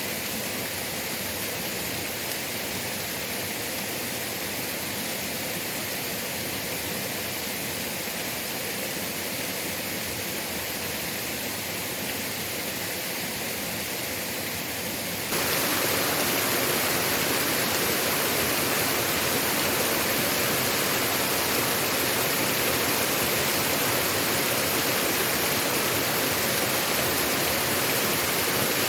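Waterfall rushing steadily. About halfway through, the rush suddenly becomes louder and fuller, then holds steady again.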